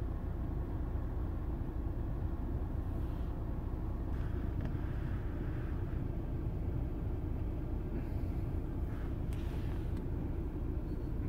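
Steady low rumble inside a car's cabin, with a few faint rustles from handling.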